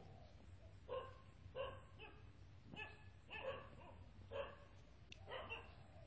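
A dog barking faintly, about six short barks at irregular intervals.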